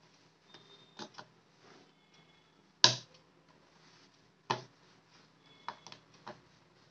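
Thin screwdriver levering at the plastic case seam of an Amazon Kindle e-reader, giving sharp plastic clicks: a loud snap about three seconds in, another about a second and a half later, and several lighter clicks around them.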